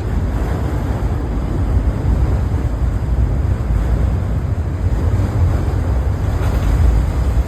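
Steady low rumble of a passing train, mixed with wind buffeting the microphone.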